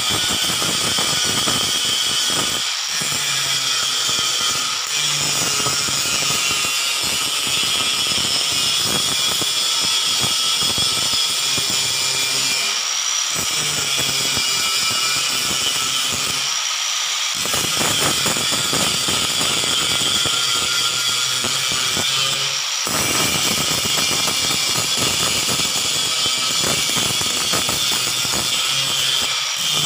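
Enka Slim (LY-S1004) angle grinder grinding steel weld beads flat: a continuous loud, high grinding whine of the abrasive disc on the metal. The sound eases off briefly a few times as the disc's contact with the work lightens.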